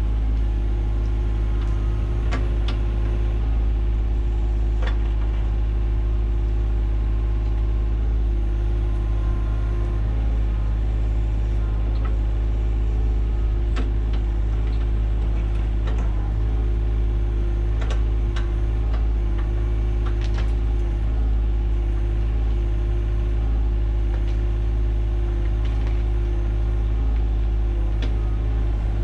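John Deere 35G mini excavator's diesel engine running steadily while it backfills a trench over drain pipe, with scattered light clicks and knocks.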